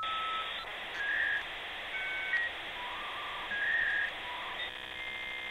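Electronic outro sound effect: a string of short beeps that jump between different pitches over a steady hiss, turning into a buzzier tone near the end.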